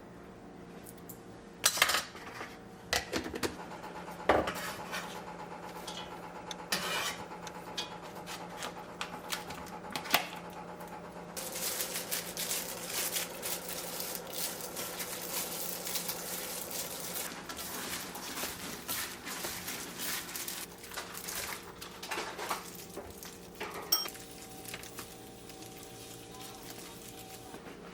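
Kitchen utensils knocking and clinking against dishes: a few sharp knocks in the first ten seconds, then about ten seconds of continuous clattering and scraping, then two more knocks, over a faint steady hum.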